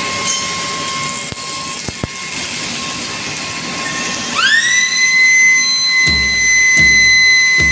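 Steady industrial noise of a foundry floor beside a flaming furnace, a hiss with a faint hum. About four seconds in, a high whine rises quickly and then holds steady.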